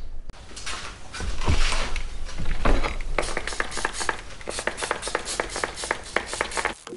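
A couple of seconds of scratchy rustling noise, then a quick run of light clicks and taps, about four a second, over a low steady hum; it all cuts off suddenly near the end.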